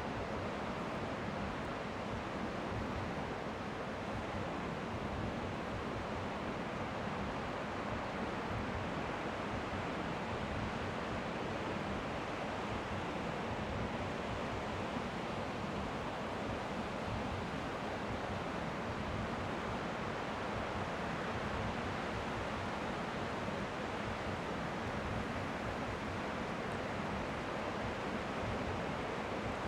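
Strong wind blowing at the shore, with faint waves lapping underneath: a steady, even rush of noise.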